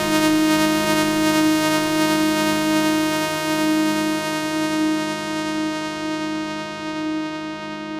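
Access Virus C synthesizer, run as a software emulation, sounding a held pad chord of many steady tones. From about halfway through it slowly fades, its bright top end dimming first, as the notes release.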